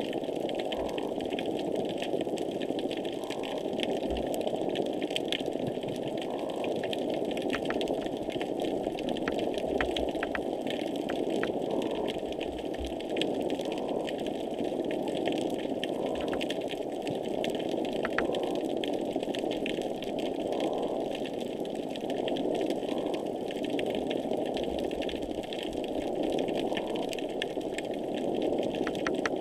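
Underwater noise picked up by a hydrophone: a steady, intense mechanical-sounding drone, with dense faint crackling clicks over it and a short repeating blip about every two to three seconds.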